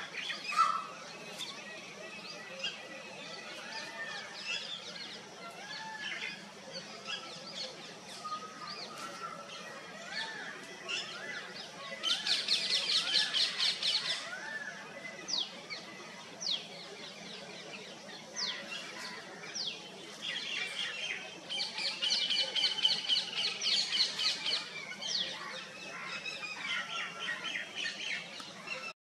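Several birds calling outdoors: scattered chirps and short whistled notes throughout, with loud bursts of rapid trilling about twelve seconds in and again about twenty-one seconds in.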